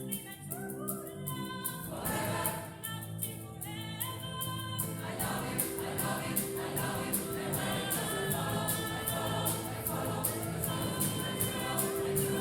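Mixed choir singing an upbeat gospel-style arrangement, with several voice parts together over a steady rhythmic beat.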